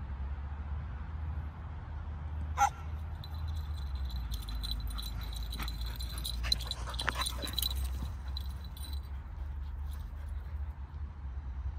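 Two dogs at play: one sharp yip about two and a half seconds in, the loudest sound, then several seconds of thin high-pitched whining with scattered clicks as they run about, over a steady low rumble.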